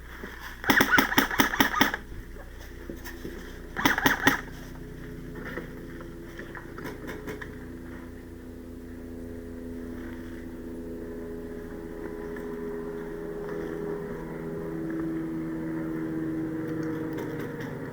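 Two bursts of rapid airsoft gunfire: one about a second long, then a shorter one about three seconds later. After them a steady low hum with several held tones goes on, growing slightly higher and louder toward the end.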